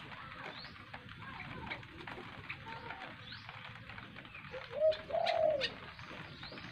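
Birds calling outdoors: scattered short, high, rising chirps. About five seconds in comes a low cooing call in two parts, a short note and then a longer one, which is the loudest sound.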